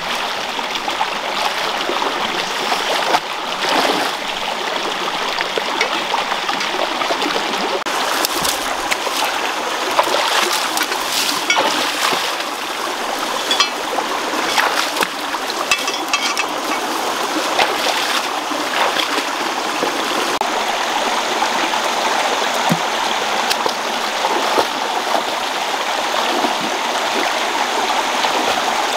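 Shallow rocky stream running steadily, with intermittent splashes as a person wades through the water, most of them in the middle stretch.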